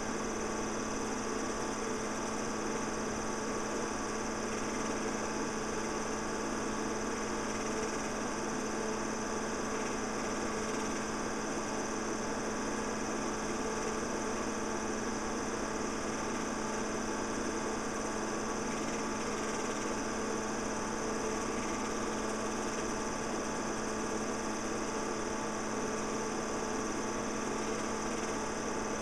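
Steady mechanical hum with several constant tones, unchanging throughout: a film projector running as silent home-movie film is played back.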